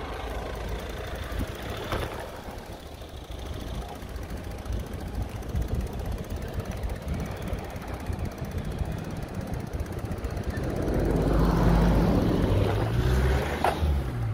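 Wind rumble on the microphone and road noise from a bicycle being ridden along a street. About ten seconds in, a passing motor vehicle's engine grows louder for a few seconds.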